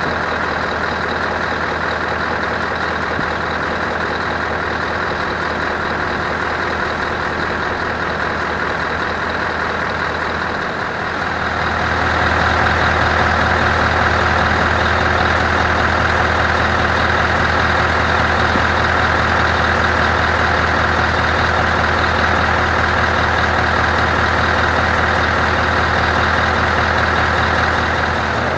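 Scania 164L's 580 hp V8 diesel engine idling steadily. About eleven seconds in the sound grows louder and stays at that level.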